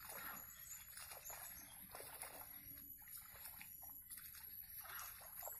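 Faint, irregular splashing and sloshing at the surface of a weedy swamp pond, stirred by fishing tackle being retrieved through the water.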